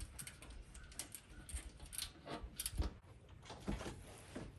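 Scattered light clicks and knocks, with a few dull thumps, from metal roof-rack parts and bolts being handled.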